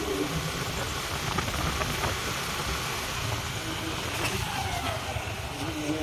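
A young man moaning in pain, with brief low moans now and then and one falling moan about four seconds in, over a steady rushing noise.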